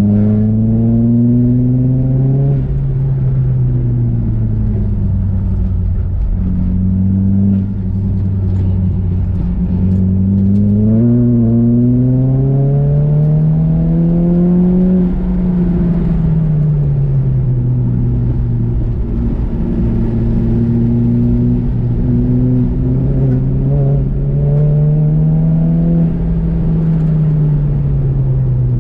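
Nissan Juke's turbocharged 1.6-litre four-cylinder engine pulling hard under track driving. Its pitch climbs and falls several times as the car accelerates and then slows, with a brief drop in level once.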